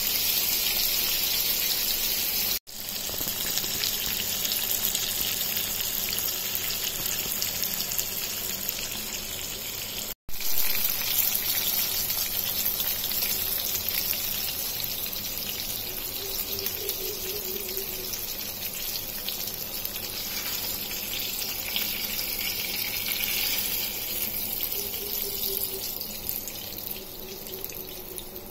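Fish frying in hot oil in a pan, a steady sizzling hiss. It drops out briefly twice, about two and a half and ten seconds in, and grows quieter toward the end.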